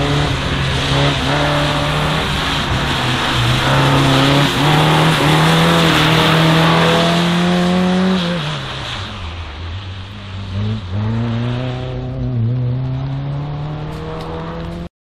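Volkswagen slalom car's engine revving hard, its pitch climbing and dropping again and again through the course. It falls away about eight seconds in, then picks up again, over a hiss of tyres on the wet track. The sound cuts off abruptly near the end.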